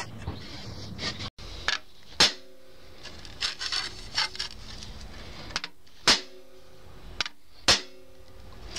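A hammer striking the teeth of a steel circular saw blade held on a steel block: four sharp blows with the blade ringing briefly after them, and quieter clicks between as the blade is moved on. Each blow bends every other tooth to set it, and the ring of each blow is meant to sound the same, so the set is judged by ear.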